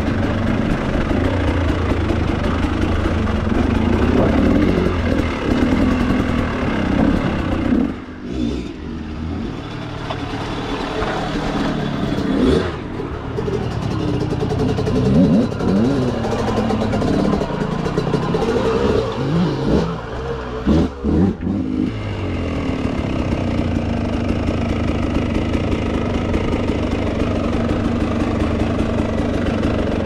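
Dirt bike engines running at low speed and revving up and down as they climb through rocky ground. The sound breaks off abruptly a few times.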